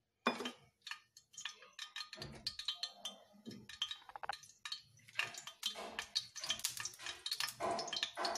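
Cooking oil heating in a non-stick kadhai on a gas flame, giving irregular small crackles and pops. They come faster and closer together in the second half.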